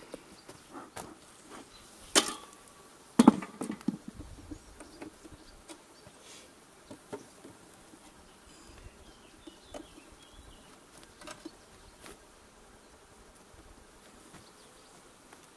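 Honey bees buzzing over an open hive, with sharp knocks and clicks of a metal hive tool prying the wooden frames apart; the two loudest come about two and three seconds in, followed by lighter scattered clicks.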